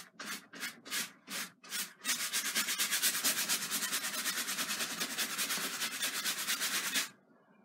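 Soft paintbrush scrubbing liquid clear medium onto a canvas, a dry, scratchy rubbing. A few separate back-and-forth strokes at first, then about two seconds in fast, even scrubbing that stops abruptly near the end.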